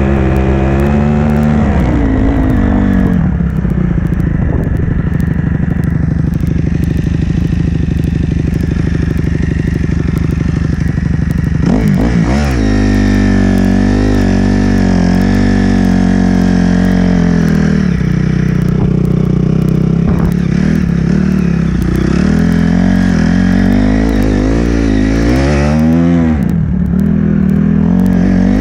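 Honda CRF dirt bike's single-cylinder four-stroke engine running under way, the revs changing with the throttle: dropping a few seconds in, a quick rise and fall about twelve seconds in, and rising and falling again near the end.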